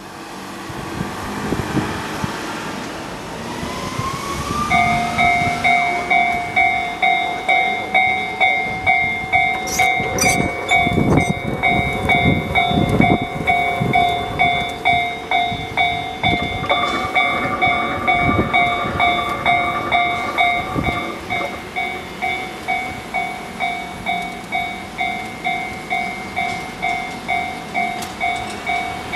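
Japanese level-crossing warning bell ringing steadily at roughly two strikes a second, starting about five seconds in. A low, heavy rumble rises under it around the middle.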